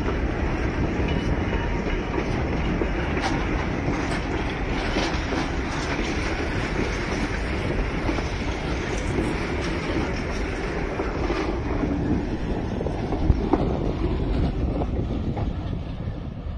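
Heritage railway passenger carriages rolling past close by: a steady rumble of steel wheels on the rails, with clicks over the rail joints and one sharper knock past the middle. The sound fades near the end as the last carriage draws away.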